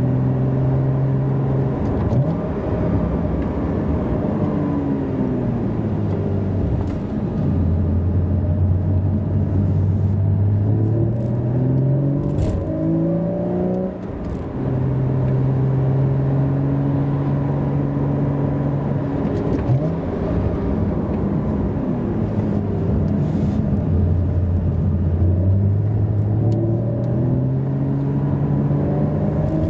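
Cabin sound of a 2016 Porsche Cayman (981) with its 2.7-litre flat-six and stock exhaust, driving. The engine note holds steady, drops, then climbs again several times as the car accelerates and eases off, over tyre and road noise.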